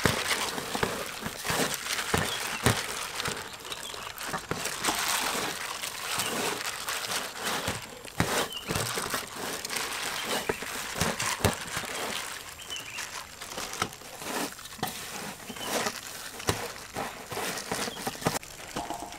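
Dry breadcrumbs rustling and crunching as hands toss and press raw chicken drumsticks into a steel tray of crumbs, with many short light taps throughout.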